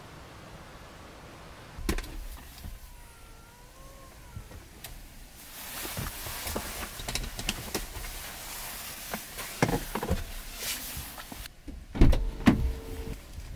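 Seats being moved and adjusted inside a Kia Niro Hybrid's cabin: a run of whirring and rustling full of clicks, then loud thumps about twelve seconds in.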